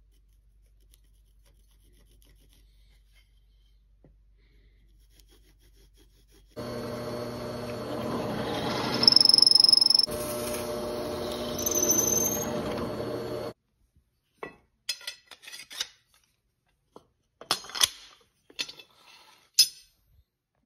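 Drill press running as a twist bit bores into a wooden handle block, with sharp high squeals from the bit as it cuts, cutting off suddenly after about seven seconds. Then a few short, light knocks and scrapes as the wooden block is handled against the steel blade.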